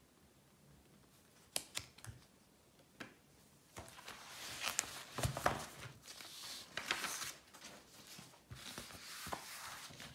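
Close-up handling sounds: a few light clicks, then irregular rustling and scraping as objects are moved about.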